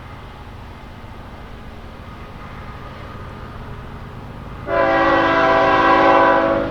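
Diesel locomotive horn sounding one long chord blast of about two seconds, starting near the end, over a steady low rumble of the train.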